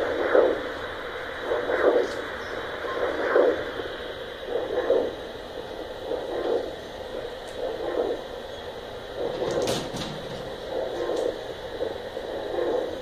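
Doppler ultrasound probe picking up the heartbeat of a Nile tilapia: a whooshing pulse that repeats about every second and a half, around 40 beats a minute, over a steady hiss. A short click comes about ten seconds in.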